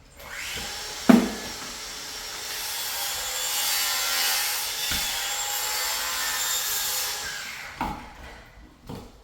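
Continuous scraping at the painted-over ceiling electrical box, about seven seconds long, with a sharp knock about a second in and another thump near the end.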